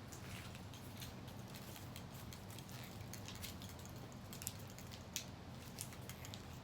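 Faint scattered clicks and scratches of a broken iPhone 7's internal parts being handled and picked apart, over a low steady hum.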